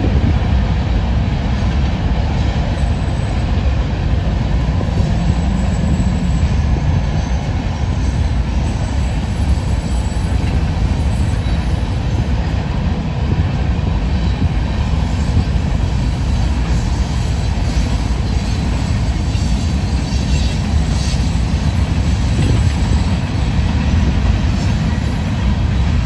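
Cars of a Union Pacific manifest freight train rolling past in a steady, continuous rumble of steel wheels on rail, with faint high wheel squeal now and then.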